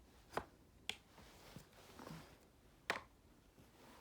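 A Smith & Wesson M&P 15-22 rifle's parts being worked back into place by hand: a few sharp, separate clicks and knocks, the clearest about half a second, one second and three seconds in.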